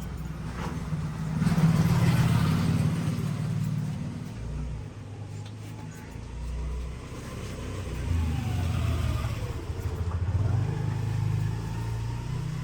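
Motor vehicle engine running, a low rumble that swells about two seconds in, eases, then swells again in the second half.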